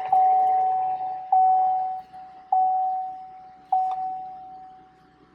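Chevy Traverse's dashboard warning chime, a single-pitched tone repeating about every 1.2 seconds, four strikes, each fading before the next, the last dying away near the end.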